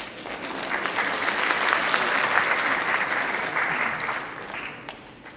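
Audience applauding, building up in the first second, strongest through the middle and dying away about five seconds in.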